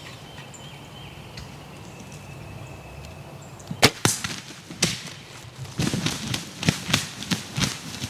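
A bow shot at a wild turkey: one sharp snap of the string a little before the middle, then an irregular run of thumps and flutters, typical of the arrow-hit bird flopping and beating its wings on the ground.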